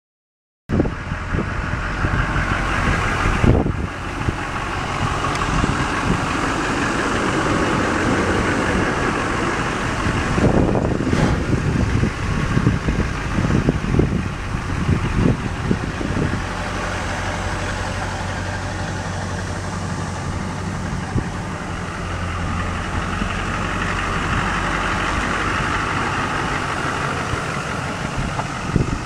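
6.6-litre V8 turbo diesel engine of a 2002 Chevrolet Silverado 2500HD idling steadily, with uneven low rumbles in the middle.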